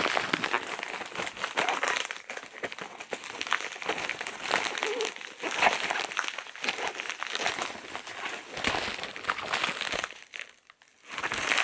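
Packaging crinkling and rustling in a stretch of irregular crackles as a mailed package is opened by hand, pausing briefly near the end.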